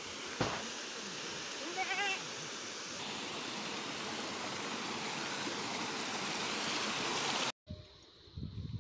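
Small mountain waterfall and stream rushing steadily, with a short warbling call about two seconds in. The water sound cuts off abruptly near the end, leaving quieter outdoor sound with a few low thumps.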